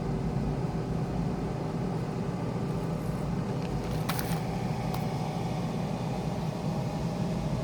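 Power XL air fryer running: a steady fan whir over a low hum, with two light clicks about four and five seconds in.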